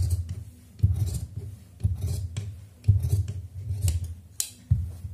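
Large steel tailor's shears cutting through blouse fabric, about one snip a second, each stroke opening with a sharp click of the blades closing.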